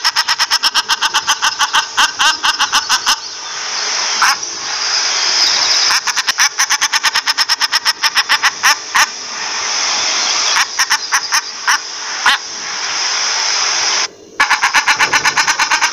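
Common shelduck calling: rapid runs of loud cackling notes, about ten a second, each run lasting two to three seconds and broken by stretches of steady hiss.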